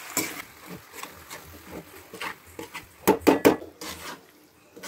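A utensil scraping and clinking against a cooking pan as pasta is stirred in its masala. About three seconds in come three or four sharper, louder clinks close together.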